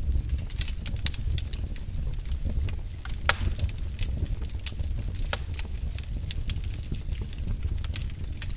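Wood fire burning in a fireplace: a steady low rumble with irregular sharp crackles and pops, the loudest pop about three seconds in.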